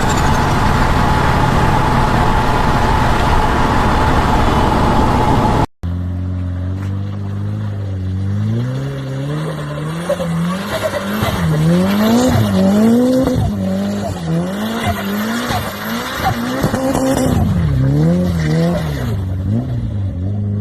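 Turbocharged car engine. First a loud, steady rush of car noise; then, after a cut, the engine is revved over and over, its pitch rising and falling about once a second, with short chattering stutters as it drops off: turbo flutter on lift-off.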